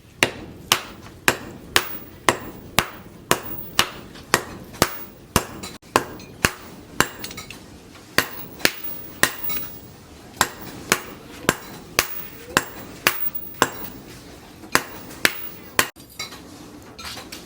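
Blacksmith's hammer striking leaf-spring steel on an anvil, about two ringing blows a second in a steady rhythm, with a few short pauses.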